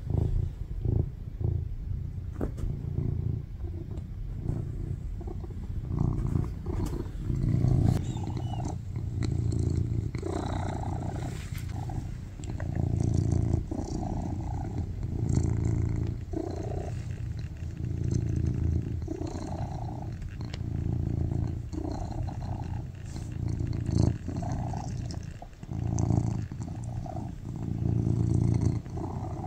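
Domestic cat purring loudly and continuously, the purr swelling and easing with each breath in and out, about every one and a half to two seconds.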